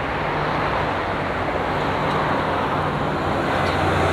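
Steady traffic on a multi-lane toll road below: cars and trucks passing, a continuous rush of tyres and engines that grows a little louder near the end.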